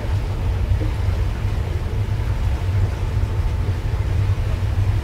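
Steady low rumble of an expedition ship under way at slow speed, its engines and machinery carrying through the deck, with a faint steady hum above it.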